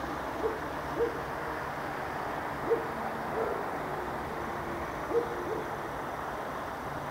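A bird's short hooting calls, repeated at irregular intervals, over a steady low background hum.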